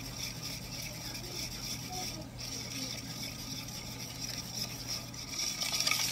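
Wire whisk beating a thick custard mixture in a bowl, its wires ticking against the bowl and getting louder near the end. A steady low hum runs underneath.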